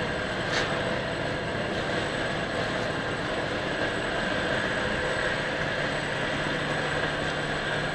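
PU sole-moulding machine and its rotary conveyor running steadily, a mechanical hum with a steady whine, and a short sharp sound about half a second in.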